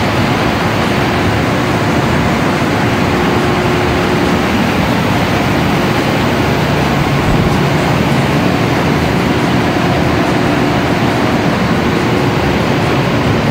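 Large standby generator set's engine running steadily: a loud, even drone with a faint steady hum.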